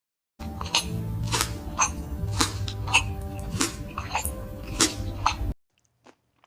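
Background music with steady sustained low notes and a beat of sharp percussive hits about twice a second, cutting off suddenly near the end.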